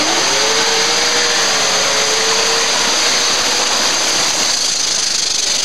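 Classic Range Rover's engine held at high revs with its pitch slowly wavering, wheels spinning and flinging mud while the 4x4 is bogged in deep mud.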